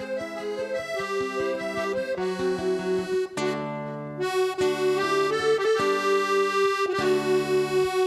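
Accordion music: a melody of short notes over a lower accompaniment.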